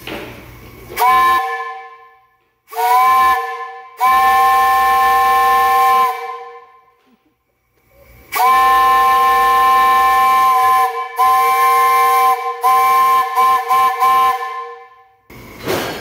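3-inch three-chime Powell steam whistle blown on live steam, sounding a three-note chord in separate blasts: two short toots, two long blasts of about two seconds each, then a run of short, choppy toots. A burst of steam hiss comes near the end.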